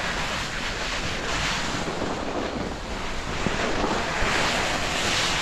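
Wind rushing over the action camera's microphone at skiing speed, mixed with the hiss and scrape of skis sliding on packed snow, rising and falling in uneven surges.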